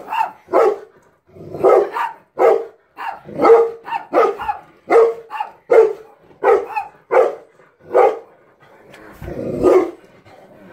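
A golden retriever barking over and over, one or two sharp barks a second, excited by dogs on a television screen. Near the end there is a rougher, longer sound.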